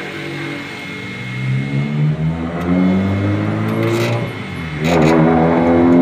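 A motor vehicle's engine accelerating, rising in pitch twice, the second time louder.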